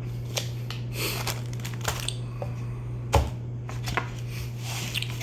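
Scattered small clicks and taps of cheese and utensils being handled on a table, with one louder knock about three seconds in, over a steady low hum.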